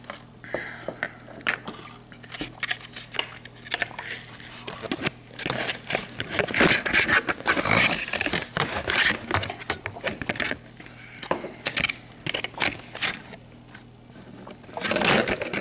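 Handling noise: a busy run of clicks, knocks and scrapes, densest in the middle, over a steady low hum.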